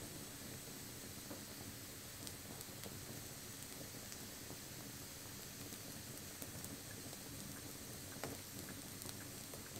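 Wood campfire burning and crackling, with scattered sharp pops over a steady low rush.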